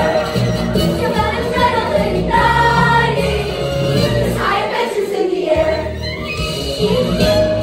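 A young ensemble singing together over instrumental accompaniment. The low accompaniment drops out briefly about five seconds in.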